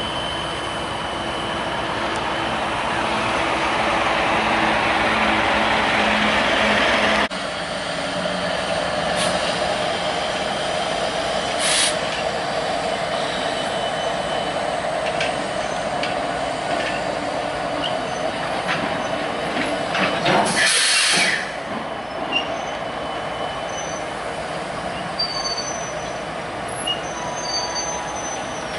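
Diesel-hauled freight train rolling past, its locomotive engines running over the steady rumble of the cars, with a loud hiss of air lasting about a second around two-thirds of the way through and short, high wheel squeals near the end. The sound swells for the first several seconds, then drops abruptly.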